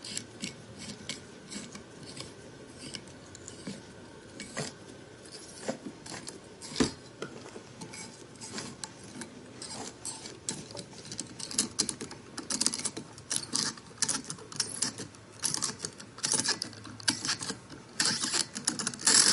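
Stainless steel wing corkscrew being twisted into a bottle through a plastic top, making a run of irregular small clicks and scrapes of metal on plastic. The clicks are sparse at first and come thicker and louder in the second half.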